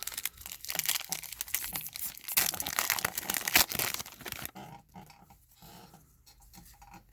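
Wrapper of a Topps WWE trading card pack being torn open and crinkled, then quieter rustling and clicks from about four and a half seconds in.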